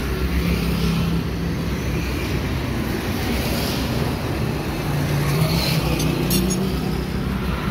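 Road traffic rumble: trucks and other vehicles running by, a steady low drone with engine hum. A few light clicks about six seconds in.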